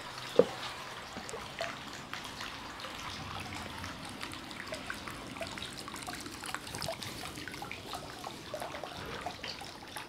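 Hot-spring water trickling steadily into a shallow footbath pool, with small drips and splashes throughout. A single sharp knock sounds about half a second in.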